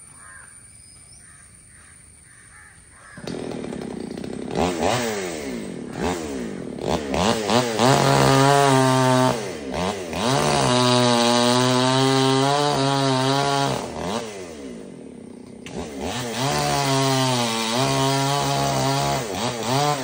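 Chainsaw cutting high up in a tree. About three seconds in it revs up and down several times, then runs at full throttle in long steady stretches, easing off briefly in between.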